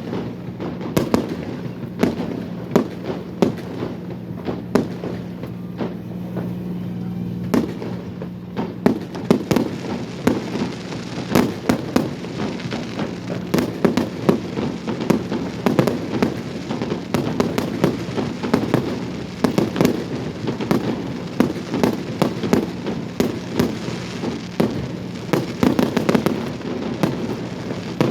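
Fireworks going off in a rapid, continuous string of bangs and crackles, getting denser from about nine seconds in. A steady low hum sits underneath for the first several seconds.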